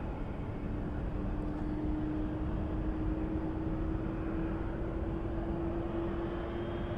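Jet airliner engines running with a steady rush and a hum that slowly rises in pitch.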